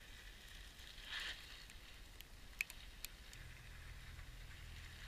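Faint outdoor street ambience: a low, steady hiss with a few light ticks and, about two-thirds of the way in, a faint low hum like distant traffic.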